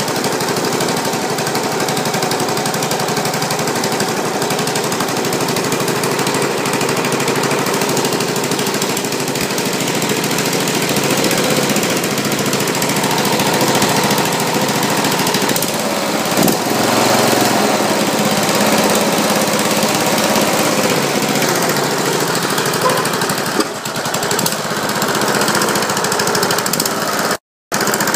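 Briggs & Stratton Intek 15.5 HP 500cc overhead-valve engine on a ride-on mower, newly installed, running steadily. The sound drops out for an instant near the end.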